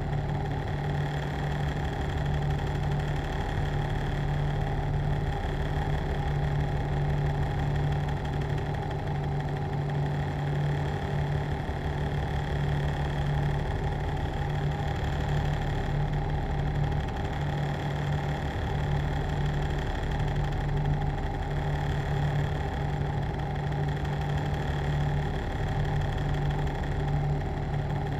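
Machine running steadily with a constant low hum, a few steady higher whining tones and a fast, even throb underneath.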